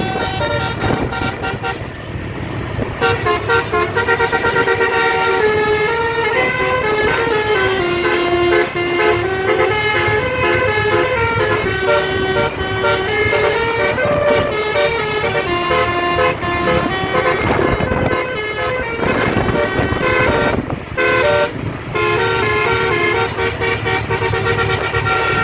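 A bus's basuri telolet air horn playing a tune, one held note after another, over the bus engine and road noise, with a couple of short breaks late on.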